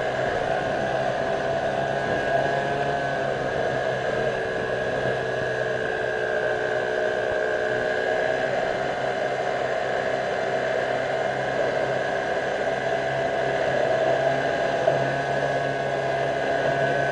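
Mercury outboard motor on a Zodiac inflatable running steadily at speed, a constant whine whose pitch wavers slightly. A hiss of wind and water rushing past sits beneath it.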